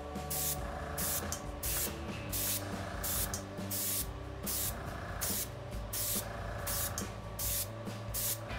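Single-action airbrush spraying black paint in short hissing bursts, about two a second, as the trigger is pulled and released over and over.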